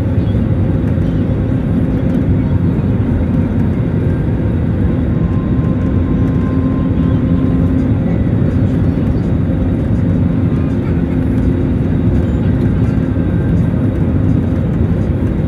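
Steady roar inside a jet airliner's cabin during the approach to landing, engine and airflow noise heard from a window seat beside the engine, with a constant low drone.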